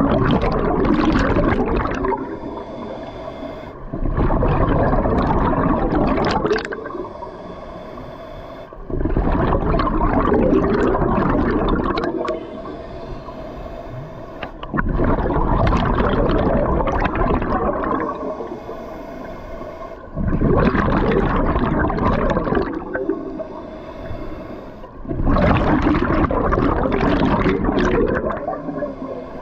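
Scuba diver breathing through a regulator underwater: loud bursts of exhaled bubbles rumbling out about every five seconds, each lasting two to three seconds, with quieter stretches between as the diver draws the next breath.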